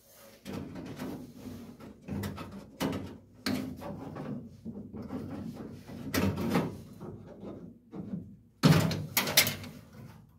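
Irregular clunks, knocks and scrapes of objects being handled, moved and set down in a workshop, with two louder knocks near the end.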